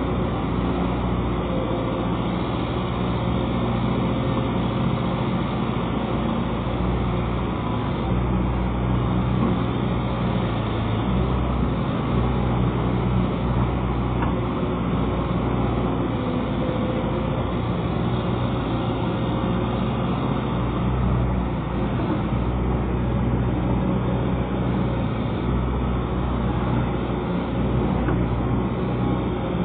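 Pontoon excavator's diesel engine running steadily, its level rising and falling slightly.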